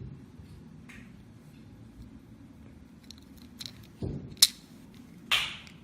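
Plastic EAS security ink tag and its pin being handled: a few faint small clicks, then a sharp click about four and a half seconds in as the pin is pushed into the tag's magnetic lock, followed by a short rasping rustle near the end.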